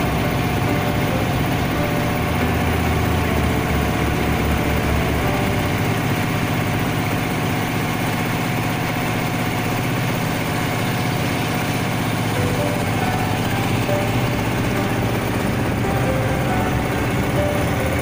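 A boat's engine running steadily at an even level, with most of its sound low down.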